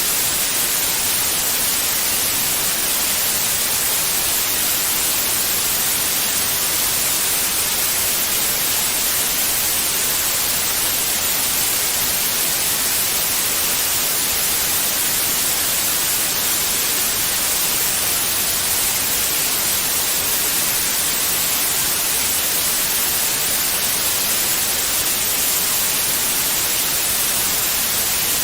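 Steady white noise, an even hiss without any change, brightest in the highs.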